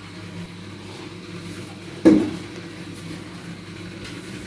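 A single short knock about two seconds in, over a low steady hum.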